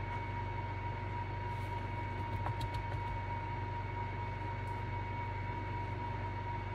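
Steady electrical-sounding hum with a faint high whine, and a few faint light clicks about two to three seconds in as a wooden mixing stick dabs glue onto a resin topper.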